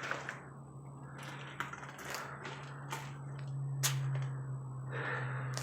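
Scattered footsteps and scuffs on a hard, gritty floor in an enclosed space, a sharp click every second or so, over a steady low hum.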